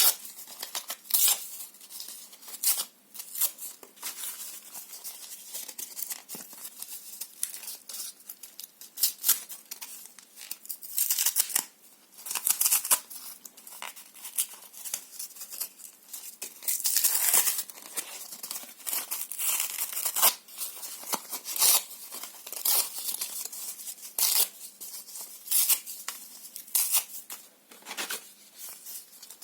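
Paper and cardboard being torn by hand, close up: a long run of short, irregular rips and crinkles.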